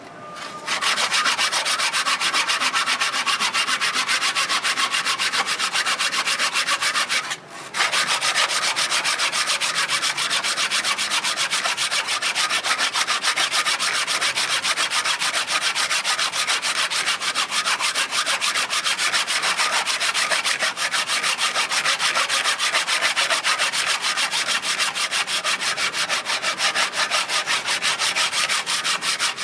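Hand saw cutting through a wooden board in a steady run of quick rasping strokes, with a brief pause about seven seconds in.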